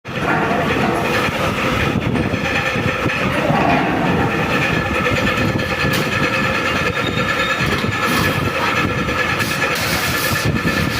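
Sheet-metal bending machine running: a loud, steady mechanical clatter with a faint whine, and a few sharp clicks, more of them near the end.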